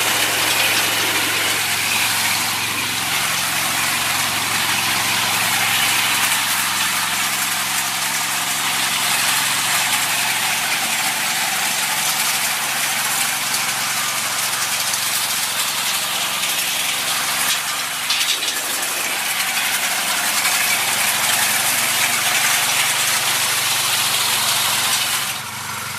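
Small single-cylinder petrol engine on a walk-behind rice reaper running steadily, with a loud hiss over a low hum, briefly dropping in level near the end.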